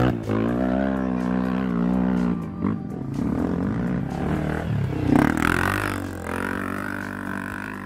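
Dirt bike engines, single-cylinder four-strokes, revving hard under load as riders climb a steep dirt hill, the pitch rising and falling with the throttle and a sharp rev about five seconds in.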